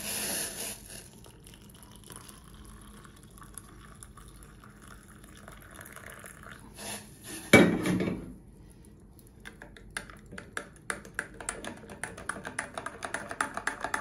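Hot water poured into a glass mug over instant coffee, creamer and sugar. From about halfway through, a metal teaspoon stirs the coffee, clinking quickly and repeatedly against the glass.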